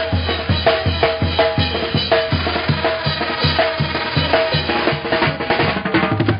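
Mexican banda music: a steady drum beat of about two and a half strokes a second over a low bass line, with repeated pitched notes above.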